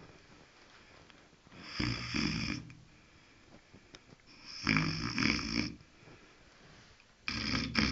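Sleeping dog snoring: three snores, each lasting about a second, spaced roughly three seconds apart.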